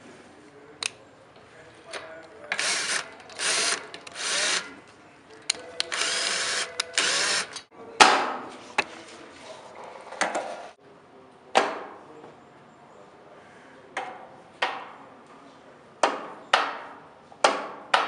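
Power drill-driver running in four short bursts, the last the longest, while driving bolts into the table frame. Then a series of about eight sharp knocks.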